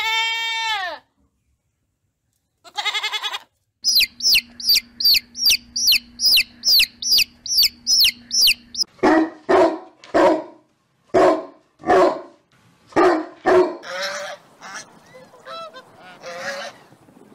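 A goat bleating twice, then chicks peeping rapidly, about three high peeps a second, then a run of short, lower bird calls, about two a second.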